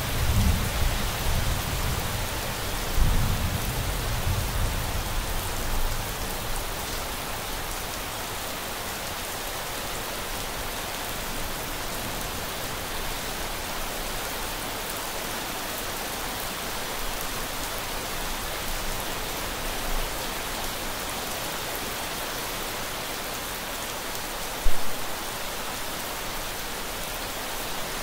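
Steady rainfall hissing, with a low rumble of thunder dying away over the first few seconds. A single brief low thump stands out near the end.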